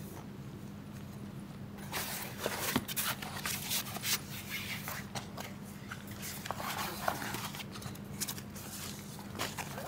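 Rustling with scattered light clicks and knocks, like things being handled, over a faint steady hum.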